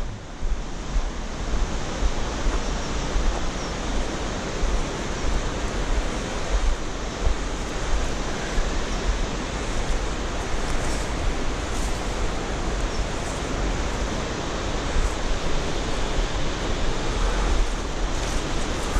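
Steady rushing of a mountain river and waterfall in the gorge below, mixed with wind gusting on the microphone as a fluctuating low rumble.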